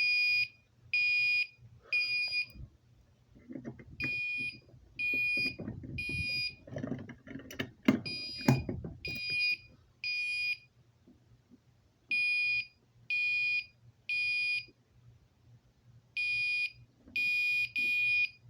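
Fire alarm horn sounding in alarm: short, high, buzzy beeps in groups of three with a pause after each group, the three-pulse temporal evacuation pattern. Some knocking and rustling comes in the middle, with a sharp knock about eight seconds in.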